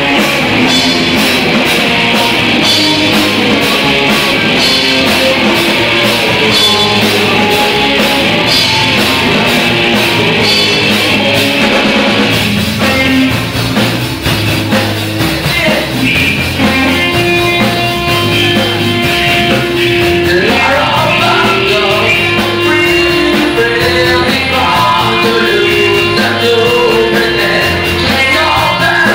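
Live rock band playing: drum kit with a steady cymbal beat for the first dozen seconds, then the song changes and a singer comes in over held guitar notes in the second half.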